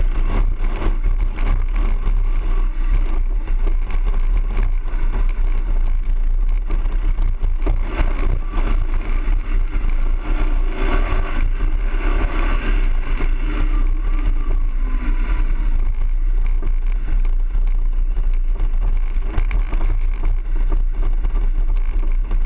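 BMW R 1200 GS boxer-twin engine running steadily as the motorcycle is ridden over dirt, heard as a heavy, constant rumble.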